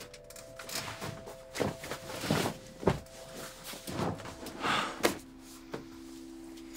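Soft background music of held notes that step down lower about five seconds in, with rustling and several light thumps from bodies and clothes moving about a bed.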